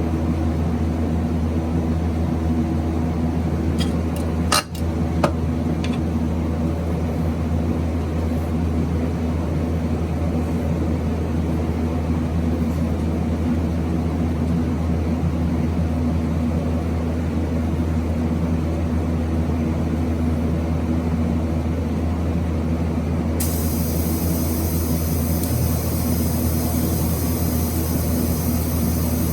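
Steady electrical hum of a TIG welding machine switched on and ready for DC welding. There is a short knock about four and a half seconds in, and a high, even hiss comes in suddenly near the end and holds.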